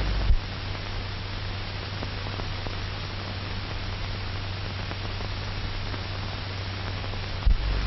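Steady hiss with a low hum from an old 1940 film soundtrack, with no other sound. A deeper rumble drops out just after the start and comes back near the end.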